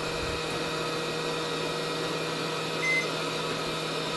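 Steady electrical hum from the workbench, with one short, high beep from a multimeter about three seconds in as its probe touches a diode on the diode-test setting.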